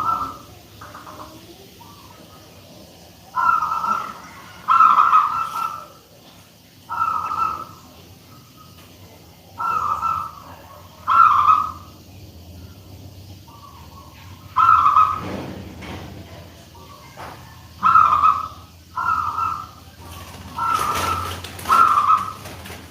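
Local zebra dove (perkutut) with a big voice, cooing: about ten short phrases, often in pairs, one every one to three seconds.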